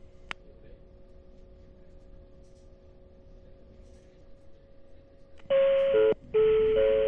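A faint steady hum and one small click, then about five and a half seconds in an on-board automatic announcement chime of several held electronic notes, stepping in pitch with a short break, the signal that a stop announcement is about to begin.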